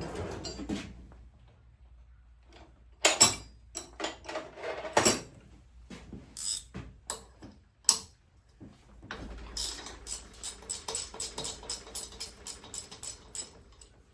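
Metal tools clanking a few times, then a ratchet wrench clicking rapidly, about five clicks a second, for several seconds as it is swung back and forth.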